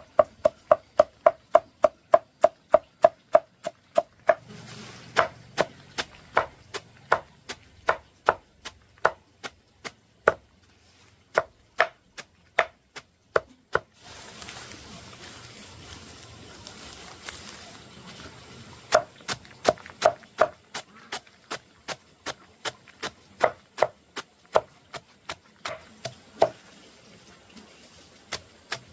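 A knife chopping on a cutting board in quick, even strokes, about three a second at first, then slower and more spaced. The strokes stop for a few seconds midway and then resume.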